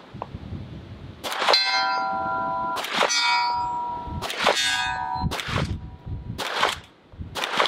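Compensated Atlas Gunworks 2011 pistol fired in slow, deliberate shots about a second and a half apart, about five in all, each followed by the ringing of a steel target being hit.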